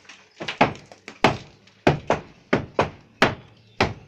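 Repeated hammer blows on a brick wall being knocked down: sharp, separate knocks at an uneven pace of roughly two to three a second.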